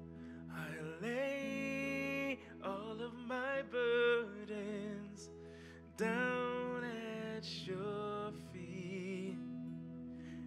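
A slow, gentle children's worship song sung by a solo voice, with vibrato on long held notes, over soft sustained instrumental accompaniment.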